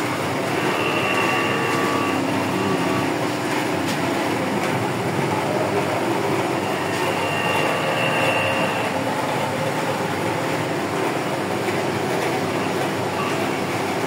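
CNC router spindle running with a small end mill cutting into a metal mold: a steady machining noise, with a thin high whine that comes in twice.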